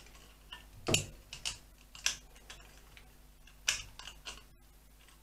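Scattered light clicks and knocks of plastic and metal as an airbox plate with four inlet mouths is worked down onto a motorcycle's four-carburettor bank. The loudest knock comes about a second in, with others near two and three and a half seconds.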